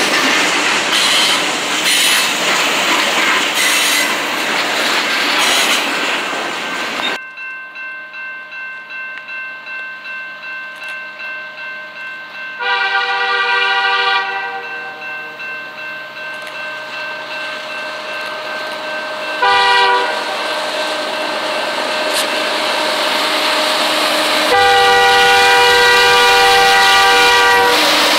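Freight cars rolling past close by, their wheels clicking over the rail joints. Then a bell ringing steadily with a pulsing beat while an approaching diesel freight locomotive sounds its multi-chime horn: a long blast, a short one, then a long one held to the end.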